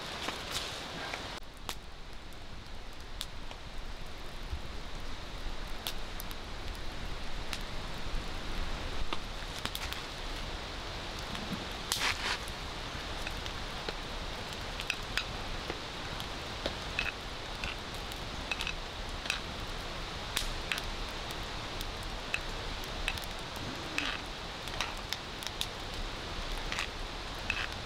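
Wood fire crackling and popping under a cast-iron skillet, with scattered sharp pops over a steady hiss and now and then a louder knock.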